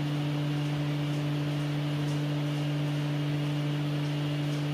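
Steady low electrical hum at one unchanging pitch, with no other clear sound over it.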